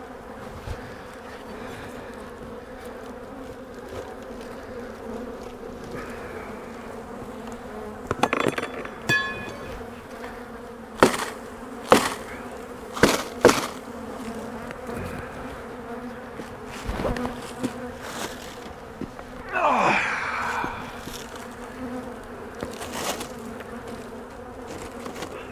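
Honey bee colony humming steadily in an opened hive. Several sharp knocks come through the middle, and about twenty seconds in a louder buzz passes close, falling in pitch.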